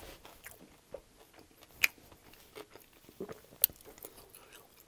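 Close-miked eating: crisp crunches and chewing as a person bites into an extra-crispy air-fried chicken wing, with two loud crunches about two and three and a half seconds in.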